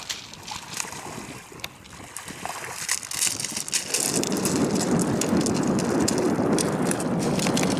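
Footsteps crunching and clattering on beach shingle, sharp stone clicks throughout. About halfway through, wind buffeting the microphone grows loud and covers much of it.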